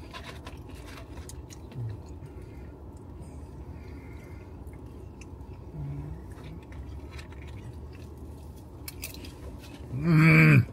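Eating sounds: chewing with light clicks and rustles of a foam takeout container over a steady low background hum. Near the end comes a loud, drawn-out hummed 'mmm' of enjoyment.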